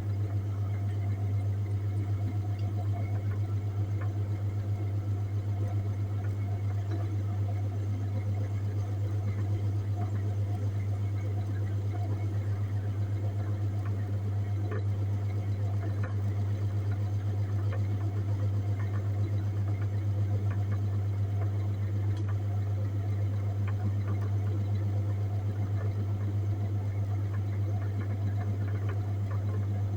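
Refrigerator display case's compressor running with a steady low hum.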